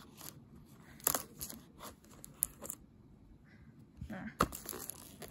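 Scissors cutting through the plastic packaging of a VHS tape: several sharp snips with crinkling and crackling of plastic.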